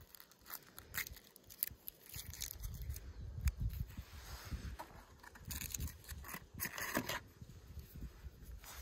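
Thin aluminium foil wrapper crinkling and tearing as it is peeled off a Kinder chocolate egg, in irregular crisp crackles, over a low rumble.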